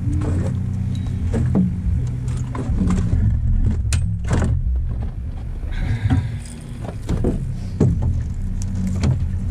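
Outboard motor running at a steady low idle, with scattered knocks and rattles of gear being handled on the boat.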